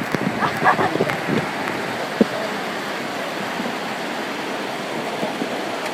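Steady rush of a mountain valley stream, with faint voices in the first second or so and a single sharp click about two seconds in.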